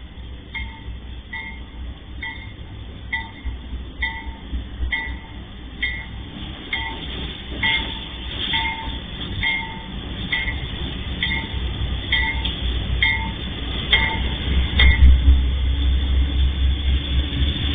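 Level-crossing warning bell dinging about once a second as a freight train's diesel locomotive approaches. The locomotive's low engine rumble grows much louder about 14 seconds in as it reaches the crossing and passes, covering the bell.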